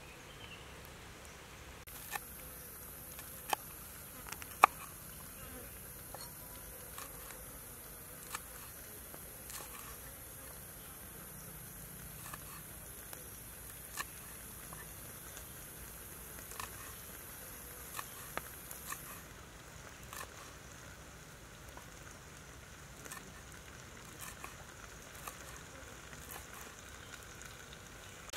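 Large knife chopping red chillies on a wooden chopping board: sparse, irregular light knocks, one sharper than the rest about five seconds in. A steady high insect drone runs from about two seconds in until about nineteen seconds in.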